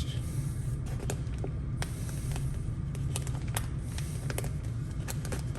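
Vinyl wrap film being stretched and pressed over a car door handle, giving off light irregular clicks and crackles over a steady low hum.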